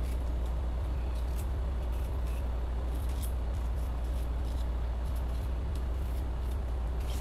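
Steady low hum, with a few faint small clicks and scrapes of a small knife peeling the skin off garlic cloves.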